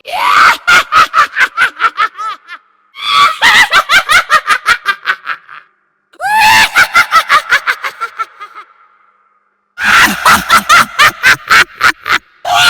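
Witch laugh: a shrill, high-pitched cackle in four bouts of rapid 'heh-heh-heh' pulses, about six a second. Each bout trails off before a short pause, and the last begins near ten seconds in.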